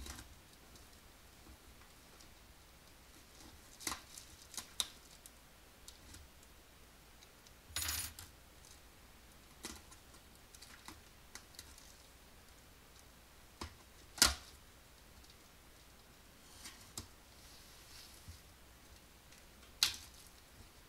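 Cardboard shipping box being slit and opened along its packing tape: scattered crackles and clicks, a short tearing scrape about eight seconds in, and sharp knocks of the cardboard about fourteen seconds in and again near the end.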